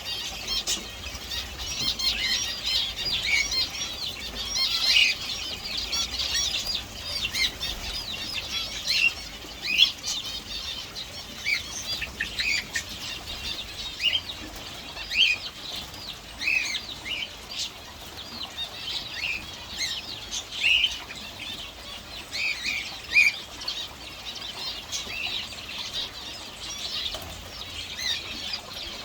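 Many small birds chirping, with short high calls overlapping one another throughout.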